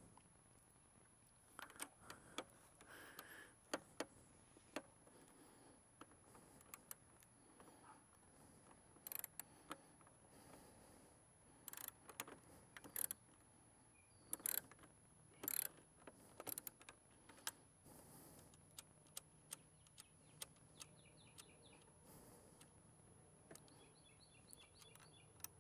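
Faint, scattered clicks and ticks of a ratchet wrench and small metal parts while the mirror's mounting nuts are undone.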